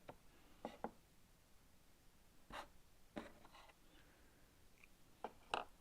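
Cardboard jigsaw puzzle pieces being handled on a table: a scattering of faint light taps and clicks as pieces are picked up and pressed into place, with a short scrape about two and a half seconds in and the sharpest click near the end.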